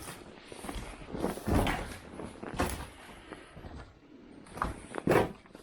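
A person moving about, making several irregular knocks and thumps, the loudest near the end.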